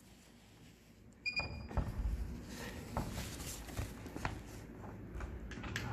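Handheld barcode scanner giving one short high beep about a second in, as a code is read, followed by scattered clicks and knocks of handling.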